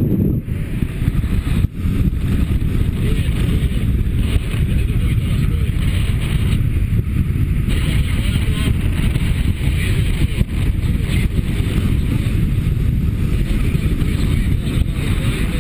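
Wind rushing over a camera microphone carried in flight under a paraglider wing: a steady, loud low rumble with a lighter hiss above it.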